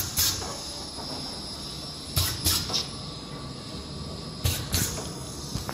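P188 double-filling encrusting machine running: a steady mechanical hum broken by short, sharp bursts of noise in groups of two or three, repeating about every two seconds as the machine cycles.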